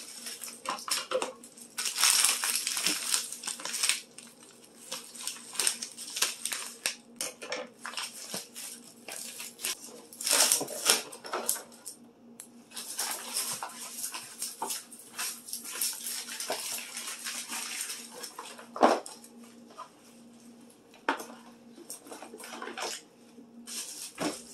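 Plastic and mesh produce bags crinkling as onions and potatoes are handled and set into plastic storage bins, with scattered light knocks of produce against the bins.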